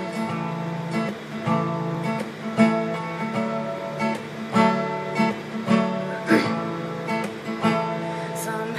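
Steel-string acoustic guitar with a capo, strummed in a steady rhythm of chords: the intro of a song.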